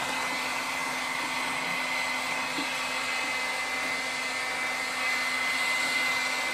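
Electric heat gun blowing steadily, its fan motor running with a steady high whine over the rush of air, heating a plastic bumper to soften it for reshaping.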